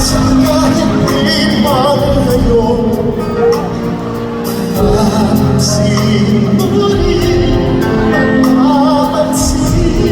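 Live concert music: a singer holding long notes over a band, with drums and cymbals keeping a steady beat.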